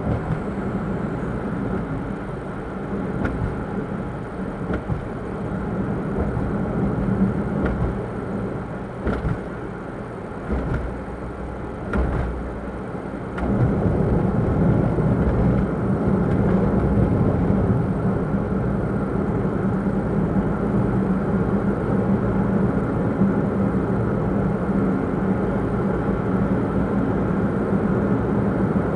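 Cabin noise of a Daihatsu Move kei car on the move: its small three-cylinder engine hums under steady road and tyre noise, with a few brief knocks. About halfway through the noise steps up suddenly and grows louder and deeper.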